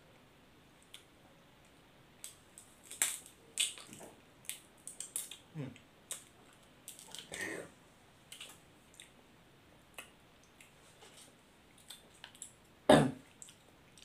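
Close-up eating sounds: wet chewing, squelching and lip smacks from mouthfuls of dipped seafood, coming in irregular bursts. One much louder knock or smack comes about a second before the end.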